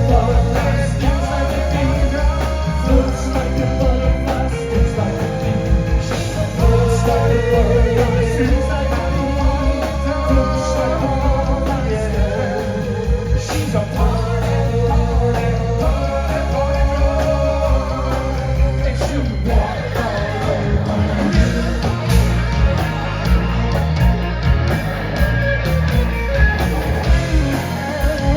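Live rock band playing a song with a lead vocal, guitars, bass, keyboards and drums.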